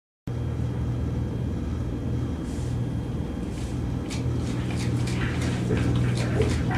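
Electronic ambient drone, a steady low hum, set off and modulated by shaking a sensor-fitted cocktail shaker tin. From about four seconds in, a quick run of sharp clicks, about four a second, joins it.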